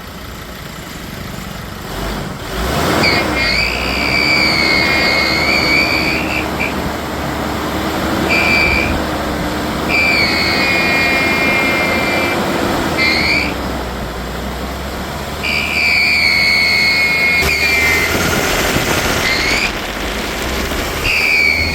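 2018 Ford Endeavour diesel engine, running and revved in stretches, with a high, steady whine that sounds for a few seconds at a time and dips in pitch as each stretch ends. The engine noise is called really dirty, and the mechanic suspects a belt or a bearing.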